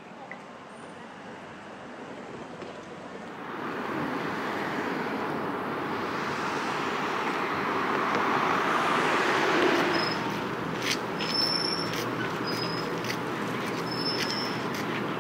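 City road traffic noise, a steady rushing that swells about four seconds in, is loudest near the middle, then eases a little. A few faint high ticks come near the end.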